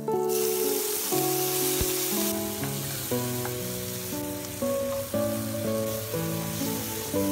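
Diced tomatoes dropped into hot oil and garlic in a frying pan: a sudden loud sizzle that eases after about two seconds into a steady sizzle as they are stirred with a spatula.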